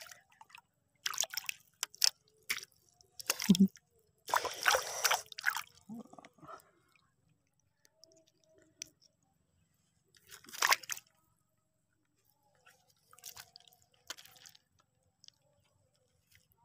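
A hooked fish thrashing and splashing at the water surface in a run of short bursts, the longest about four seconds in, the splashes growing sparser toward the end.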